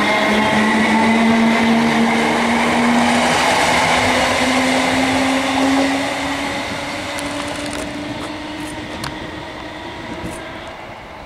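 BREL Class 318 electric multiple unit pulling away, its traction motors whining in a slowly rising pitch over the rumble of the wheels. The train grows fainter from about halfway through, with a few light clicks near the end.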